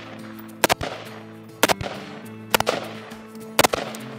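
Four rifle shots, evenly spaced about a second apart, each cracking sharply and then echoing briefly.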